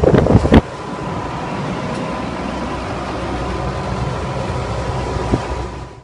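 Outdoor condensing section of a packaged air-cooled air-conditioning unit running, with its 10-horsepower compressor: a steady mechanical hum with a thin steady whine. Wind buffets the microphone in the first half-second, and the sound cuts off suddenly near the end.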